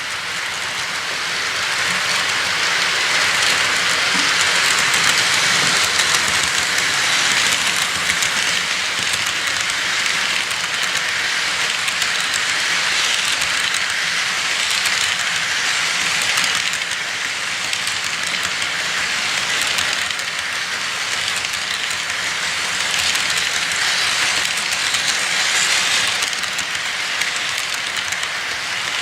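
A train rolling along its track: a steady rushing noise with many rapid faint clicks, growing louder over the first few seconds.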